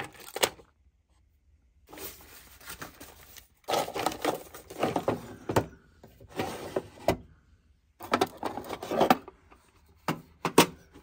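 Rummaging through the drawers of an old wooden sewing-machine cabinet: spools, needle packets and small parts rattled and shifted, and the wooden drawers scraped and knocked as they are handled. This comes in several short spells with pauses between, and a few sharp clicks near the end as a plastic attachment box is picked up.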